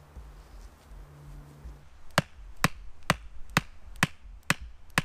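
A hatchet hammering a sharpened wooden stake into the forest floor. About seven sharp, even knocks come roughly two a second, starting about two seconds in.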